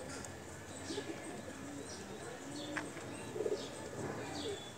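Background birdsong: a dove cooing in short low notes several times, with faint brief high chirps from small birds.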